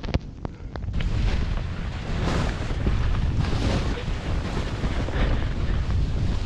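Wind rushing over the microphone while skiing downhill fast, mixed with the hiss of skis sliding through snow. It swells and fades several times after the first second.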